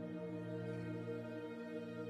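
Soft, slow instrumental music holding one sustained chord.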